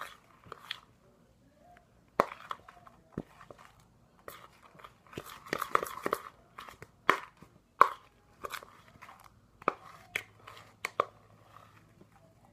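Fluffy slime, just activated with borax solution, being mixed and worked: irregular sticky clicks and squelches, busiest around the middle.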